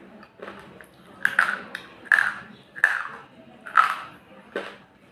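A slate pencil being bitten and crunched between the front teeth: about six sharp, brittle snaps, each with a short gritty crunch after it.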